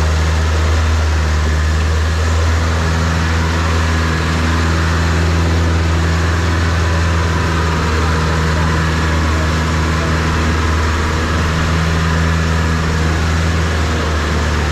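Motor vehicle engine running at a steady speed, a loud low drone with a steady hiss above it.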